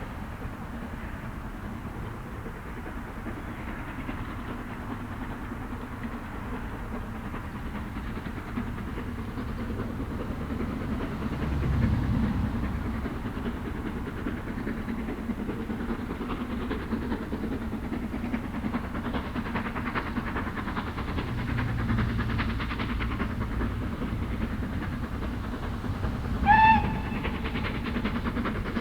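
Steam-hauled train running along the line, a steady sound of the locomotive and wheels on rail, with one short blast on the locomotive's whistle near the end.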